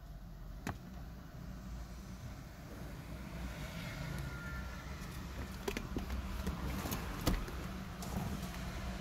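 Low rumble of a motor vehicle that grows louder a few seconds in, with a few sharp clicks scattered through it.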